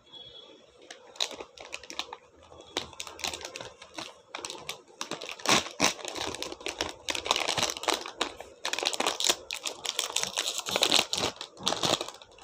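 Shiny plastic wrapper of a chocolate-coated ice cream bar crinkling and crackling as it is peeled open by hand: a run of small crackles that grows denser and busier from about halfway through.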